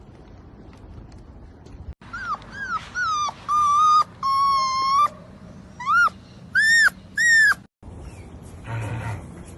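Dog whining and yelping: about three short, high yelps, then two longer steady whines, then three more yelps, each rising and falling in pitch. A short, rougher sound follows near the end.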